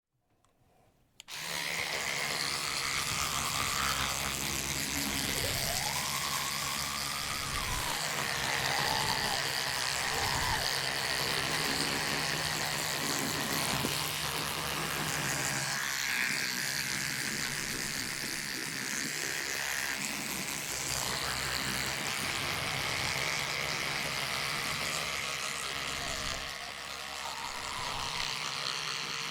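Electric toothbrush running while brushing teeth: a steady buzzing hum that starts about a second in, its tone shifting now and then.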